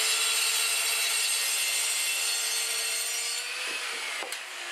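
Handheld circular saw cutting through a 22 mm chipboard panel, a steady loud cutting noise with a whine under it. About three and a half seconds in the noise eases and the whine dips a little.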